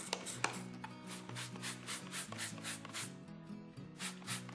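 Stiff brush scrubbing the wet, foamy cast-iron body of an old hand plane in quick back-and-forth strokes, about six a second, pausing briefly near the end, to clean off rust remover and corrosion. Background music plays underneath.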